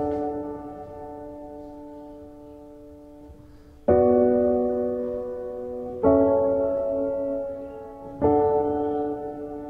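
Soundtrack piano music: slow, sustained chords struck about every two seconds, three times, each left to ring and fade.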